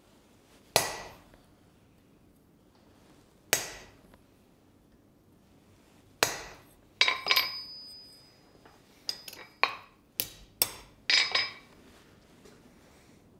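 Hammer blows on a half-ball punch, driving pockets about three-quarters deep into a hot steel leaf on the anvil so the leaf's edge bulges around each one. Each strike rings metallically; two come a few seconds apart, then a quicker run of strikes follows in the second half.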